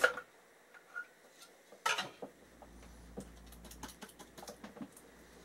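Faint light clicks and taps of a DVD and its adhesive disc label being handled and pressed on, with one sharper click about two seconds in.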